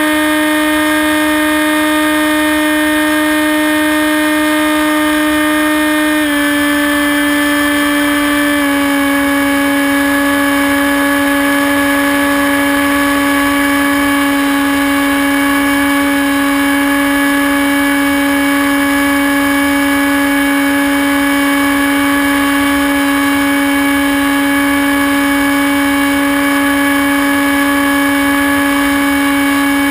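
Hawk Sky RC plane's electric motor and propeller running steadily in flight, heard from a camera mounted on the plane. The pitch drops slightly about six seconds in and again a couple of seconds later, then holds.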